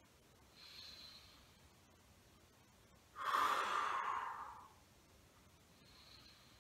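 A man's slow, deep breathing in a paced breathing exercise: a faint breath about half a second in, a louder out-breath around the middle lasting about a second and a half, and another faint breath near the end.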